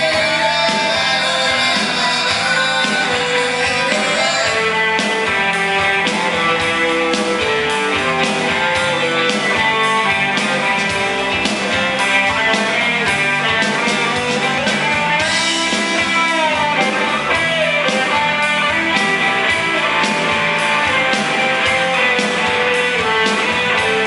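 Live rock band playing: guitars over drums keeping a steady beat.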